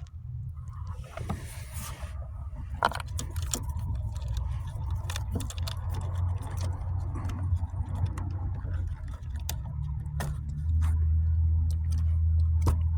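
Small parts being handled: scattered light clicks and rattles of solder-seal connectors and wiring, over a steady low hum that gets louder about eleven seconds in.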